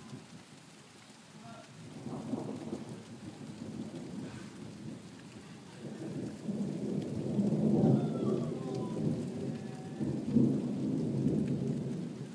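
Thunder rumbling over steady rain. The rumble builds about two seconds in and is loudest in the second half, with two peaks.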